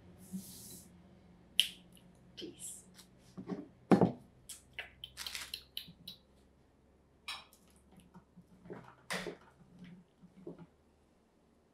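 Kitchen handling noises at a table: a short hiss at the start, then scattered clicks and a loud knock about four seconds in, followed by irregular rasping strokes as a block of cheese is rubbed down a metal box grater on a cutting board.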